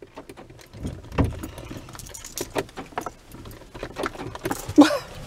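Small clicks, rattles and rustling of someone moving about in a car seat and handling things, with a soft thump about a second in.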